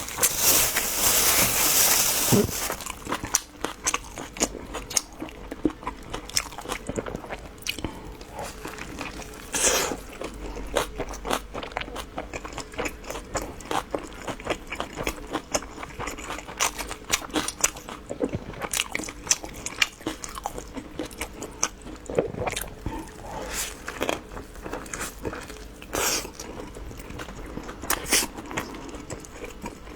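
Close-miked biting and chewing of crunchy food: many sharp, irregular crunches and mouth clicks. A loud, even hissing noise fills the first two and a half seconds.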